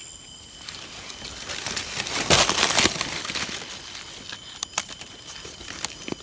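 Dry leaf litter rustling and crackling as hands work a mushroom free, building to a loud rustle about two and a half seconds in. After it come a few light, scattered clicks as a small knife trims the mushroom.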